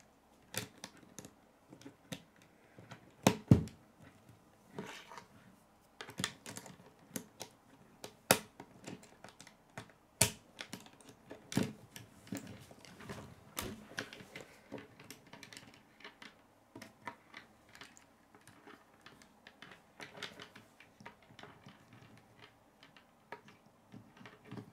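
K'nex plastic rods and connectors clicking and snapping together as pieces are handled and set on a wooden tabletop, in irregular clicks. The loudest are a few sharp clicks about three and a half seconds in.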